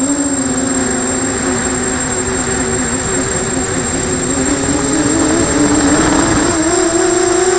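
Brushless motors and propellers of a 250-size FPV quadcopter whining in flight, the pitch wavering with throttle and rising near the end, over a steady rushing noise.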